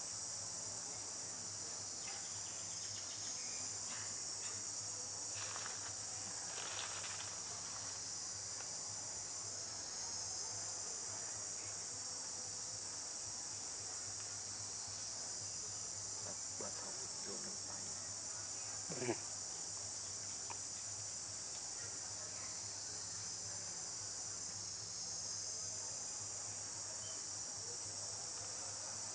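A steady, high-pitched chorus of forest insects that swells and eases slightly every several seconds. A single short, sharp sound stands out about nineteen seconds in.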